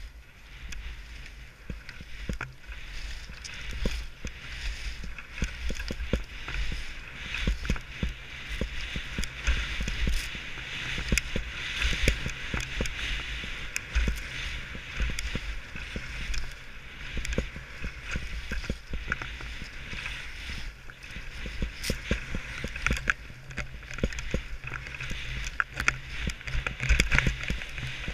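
Skis sliding and scraping over chopped-up snow: a continuous hiss that swells and fades through the turns, with frequent short knocks as the skis ride over bumps. Wind rumbles on the body-worn camera's microphone underneath.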